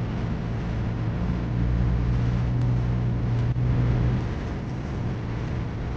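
Steady low mechanical hum of a running motor, strongest for the first four seconds and then easing off.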